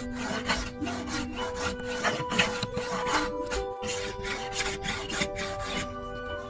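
Hand grooving plane cutting a groove along a hardwood strip: quick scraping strokes, about two or three a second, that stop shortly before the end. Background music with steady tones plays underneath.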